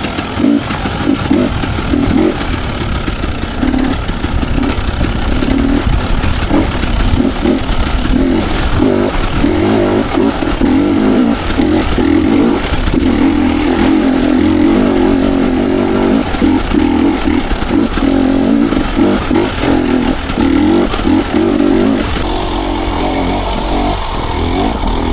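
Dirt bike engine being ridden hard over rough trail, its pitch rising and falling with the throttle, with rattles and knocks from the bike. The engine eases off about three seconds before the end.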